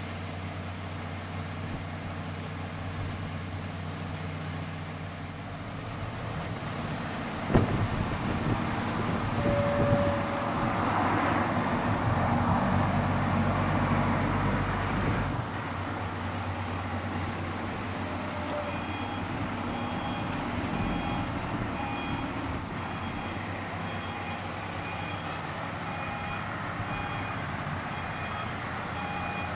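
A large vehicle's engine running steadily, swelling louder for several seconds in the middle, with one sharp knock about seven seconds in. In the last third a reversing alarm beeps about once a second.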